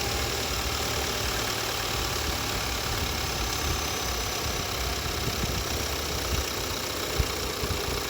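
Engine idling steadily with a knock, the fault the owner is recording; one sharper knock stands out about seven seconds in.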